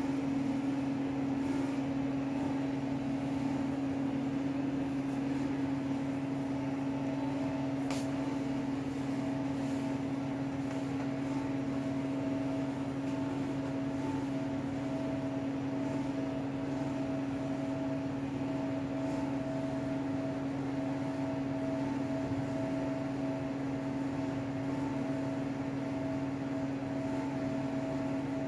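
Steady electrical machine hum with a constant low drone and a fixed higher tone over it, unchanging throughout, with one faint tick about eight seconds in.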